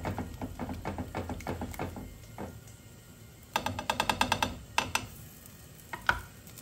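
A small wire whisk stirring a thick, creamy pot pie filling in a stainless steel pot, with quick strokes for the first couple of seconds. About three and a half seconds in comes a fast rattle of ringing metal clicks from the whisk against the pot, the loudest part, then two single clinks.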